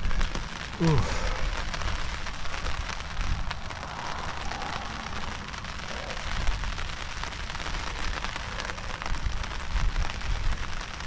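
Rain falling steadily in a dense patter, with wind rumbling on the microphone.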